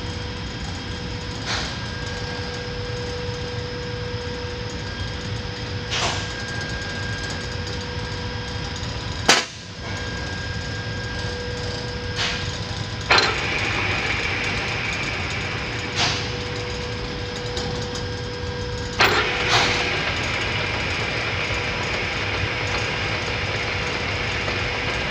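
Metal lathe running with a steady hum and whine, broken by several sharp metallic clunks as the headstock speed-change levers are shifted. After the clunks about halfway and again near the three-quarter mark, the running sound changes and grows hissier.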